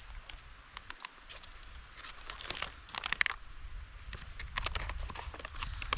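Plastic MRE pizza pouch crinkling and crackling as it is handled and torn open, in irregular bursts, busiest about halfway through.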